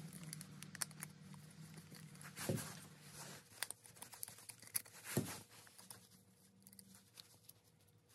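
Small metal clicks, ticks and scrapes of a Colt Single Action Army revolver being taken apart with a screwdriver, with two louder knocks of parts being handled, about two and a half and five seconds in. A low steady hum fades out a few seconds in.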